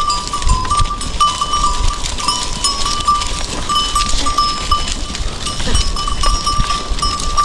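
Bells on a herd of goats clanking and ringing without a break as the herd walks, at two close pitches, over the shuffle of hooves on a dirt path.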